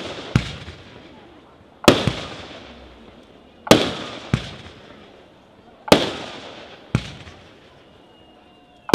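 Fireworks display: aerial shells bursting in a string of six sharp bangs, one to two seconds apart, each followed by a fading echo.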